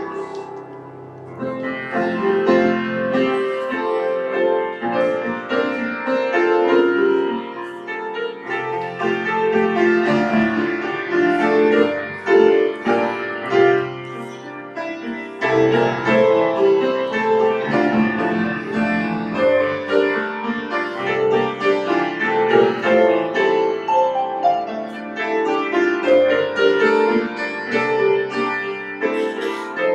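Solo grand piano playing a slow piece of chords and melody with sustained notes, growing louder about a second and a half in.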